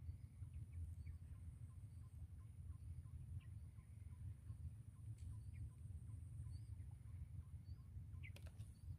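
Faint outdoor ambience by a pond: low wind rumble on the microphone, a steady high-pitched insect drone, and soft small calls repeating about twice a second. A short sharp chirp with clicks comes near the end.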